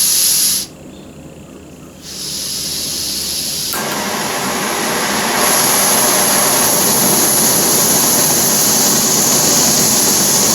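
Camp stove gas burner: a short burst of gas hiss, then gas hissing again from about two seconds in. The burner catches into a steady jet-engine-like rush near four seconds and grows louder at about five and a half seconds, then holds.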